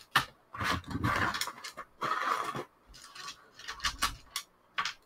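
Hands handling paper and small game pieces on a tabletop: several short rustling scrapes about half a second long, with a few light clicks between them.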